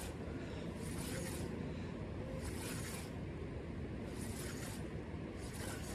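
Spinning reel being cranked in short spells, a soft zipper-like whir about every second and a half, over the steady rush of creek water.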